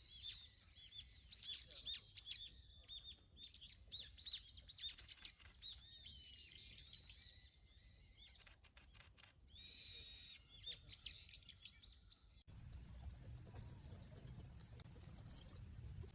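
Many small birds chirping with quick, high, rising and falling notes, some short rattling calls among them. About twelve seconds in, the birdsong cuts off abruptly and gives way to a low, steady rumble.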